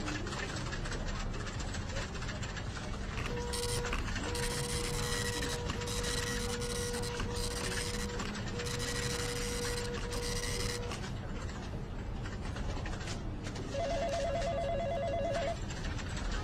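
An office printer running through about six short passes, each a steady whine with a hiss, one after another; then, near the end, an electronic office telephone rings once with a fast trill, about a second and a half long, over a steady low office background.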